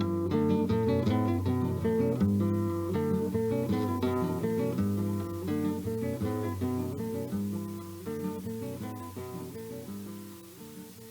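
Acoustic guitar playing a plucked instrumental passage, fading out gradually to the song's end.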